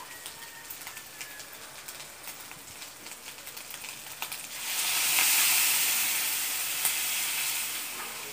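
Pork pieces sizzling in hot oil in a pan, with many small pops. About halfway through, coconut milk is poured in and hits the hot pan with a sudden loud hiss of steam that slowly eases off toward the end.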